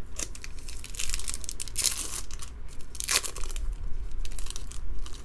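Foil wrapper of a baseball card pack crinkling and being torn open by hand, with the loudest rustling bursts about two and about three seconds in.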